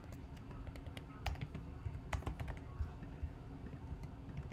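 Faint computer keyboard typing: a scattering of irregular, separate keystrokes as a short entry is typed.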